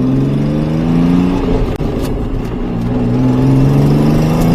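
Pontiac Fiero GT's 2.8 V6 accelerating hard: the engine note rises through one gear, drops at an upshift about two seconds in, then climbs again in the next gear.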